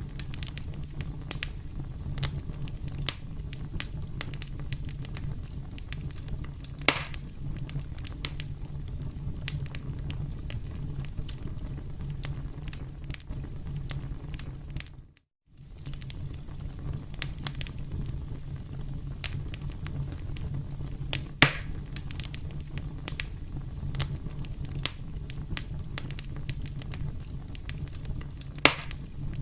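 Campfire crackling, with many small pops over a steady low rumble of burning wood and a few louder pops spread through. There is a brief gap of silence about halfway through.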